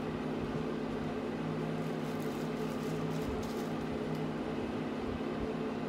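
Steady hum of a small motor running at a constant pitch, with a few faint soft rustles near the middle.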